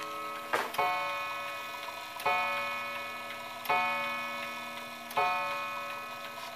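Key-wound wooden mantel clock striking the hour, eleven o'clock: four evenly spaced strikes about a second and a half apart, each a bell-like ring that dies away slowly before the next.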